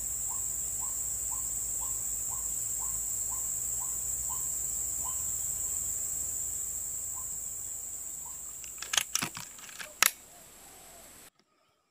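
Steady high-pitched insect drone, with a short chirp repeating about twice a second that fades out past the middle. Near the end come a few sharp clicks, then the whole background cuts off abruptly.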